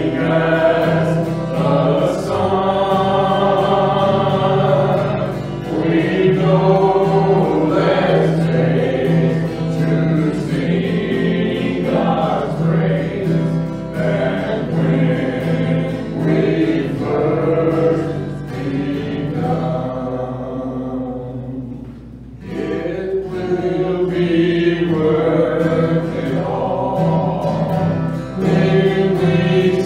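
Several voices singing a gospel hymn together to a strummed acoustic guitar, with a brief lull about two-thirds of the way through.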